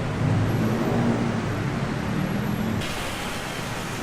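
Busy road traffic: vehicle engines running close by, with a sudden hiss about three seconds in.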